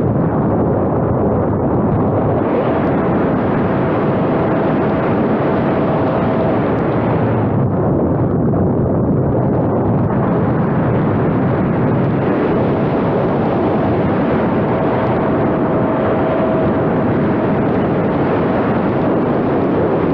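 Wind rushing loudly and steadily over the microphone of a camera mounted on a small plane in flight. The plane's motor whine shows through twice as a thin steady tone for a few seconds each.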